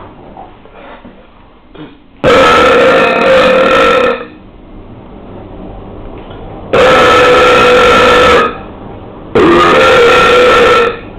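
Three long, loud burps from a person, each lasting one and a half to two seconds at a fairly even pitch, with short pauses between them.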